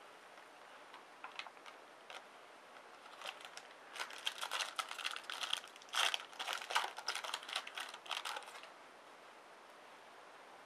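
Trading-card pack wrapper being handled and torn open. A few light clicks come first, then a dense crinkling crackle of about four to five seconds that stops abruptly.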